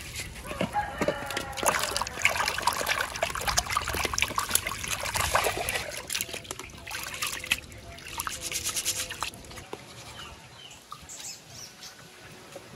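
Water splashing and sloshing in a bowl as leaves are swished through it by hand, then the softer swish and trickle of sticky rice being rubbed and rinsed in a pot of water. The splashing dies away about ten seconds in.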